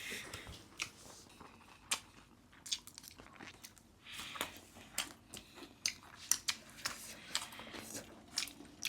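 A person chewing and biting food, with irregular sharp mouth clicks scattered through the chewing.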